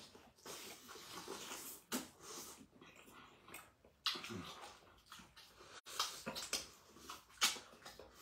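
Close-miked eating sounds: wet chewing, lip-smacking and sucking as two people bite and chew meat with soup by hand, with a brief low hum about four seconds in.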